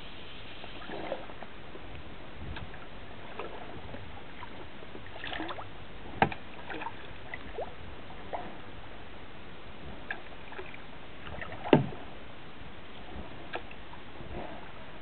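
Kayak being paddled through calm water: soft paddle splashes and drips with scattered sharp knocks, two louder ones about six and twelve seconds in.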